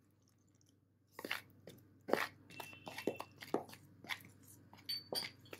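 Metal spoon stirring yeast liquid into dry flour in a plastic bowl. About a second in, irregular soft crunching scrapes and taps begin and keep on, roughly two or three a second.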